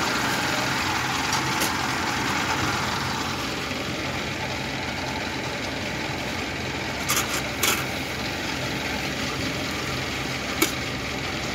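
Engine of a small tracked rice-transport cart idling steadily, a little louder for the first few seconds, with a few sharp knocks in the second half.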